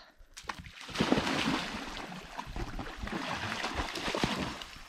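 A dog splashing and wading through shallow creek water as it retrieves a stick, the splashing starting about a second in and churning on irregularly.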